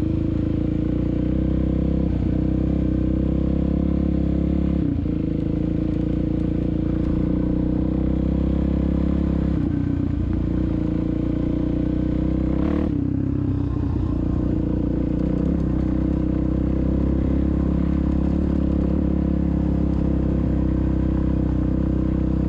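2016 Suzuki DRZ400SM's single-cylinder four-stroke engine running at a steady speed while the bike cruises down a gravel road. A few brief sharp clicks break through, the sharpest about 13 seconds in.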